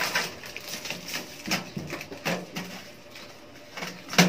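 Plastic protective wrap being pulled and torn off a stainless-steel gas oven: a series of short rustles and knocks, the sharpest one near the end.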